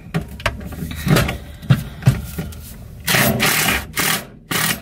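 Cordless drill run in three short bursts near the end, the first the longest, driving screws to fasten a steel load-center box in place. Before them come a few knocks and clicks of handling the drill and box.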